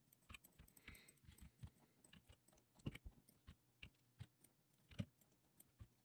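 Faint, scattered clicks of a computer keyboard and mouse, a few a second, with a couple of slightly louder clicks about three and five seconds in.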